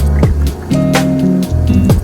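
Background music with a deep bass line and a regular beat.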